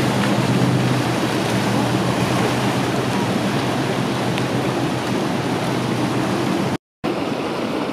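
Motorboat passing close underneath, its low engine hum fading about a second in, over a steady rushing noise of churned wake water. The sound drops out briefly near the end.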